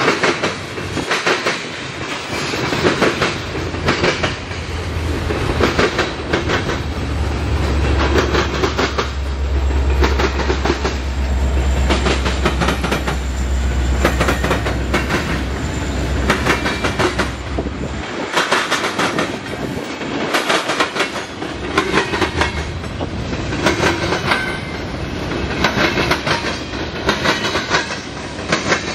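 Freight train rolling past, its wheels clicking steadily over the rail joints. A Union Pacific diesel locomotive in the middle of the train passes close by, with a low engine rumble from about six to eighteen seconds in.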